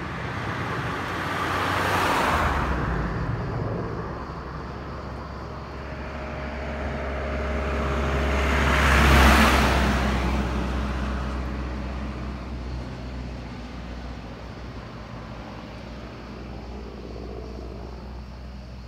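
Two road vehicles passing close by, one after the other, each rising and fading. The second, about nine seconds in, is louder, with a low engine hum.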